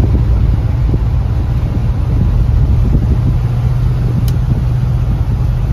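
A 1979 pickup truck's engine and road noise heard from inside the cab while cruising, a steady low drone. There is a single faint tick about four seconds in.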